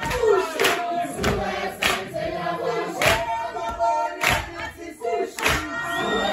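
A group of voices singing a chant together, with a sharp percussive beat about every 0.6 seconds keeping time for the dance.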